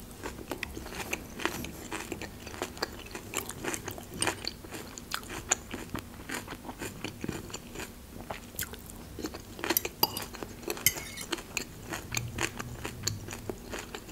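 Close-miked chewing of a raw vegetable salad, with many irregular crisp crunches throughout.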